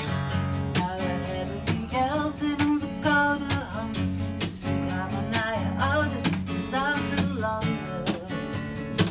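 Acoustic guitar strummed in a steady rhythm, with a woman singing a melody over it from about two seconds in.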